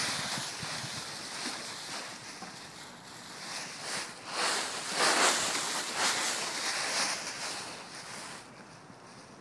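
Dry fallen leaves rustling as a White Swiss Shepherd dog runs and digs through a thick leaf layer, in uneven swells that are loudest about halfway through.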